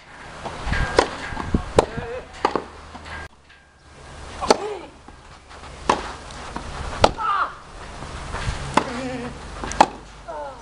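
Tennis rackets striking a tennis ball in a doubles rally: sharp, hollow pops about every one to two seconds, with a few short grunts or calls from the players between the hits.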